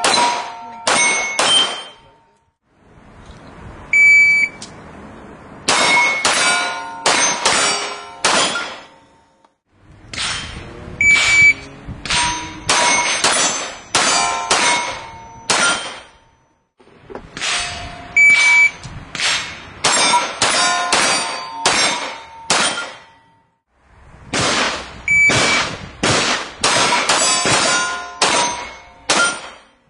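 Handgun shots in rapid strings, each followed by steel target plates clanging and ringing, with a short electronic shot-timer beep before a string. Several such strings follow one another, separated by brief drop-outs.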